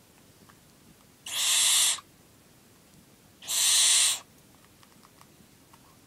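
Young barn owl giving two harsh, hissing screeches, each under a second and about two seconds apart: the rasping food-begging call of an owlet being hand-fed.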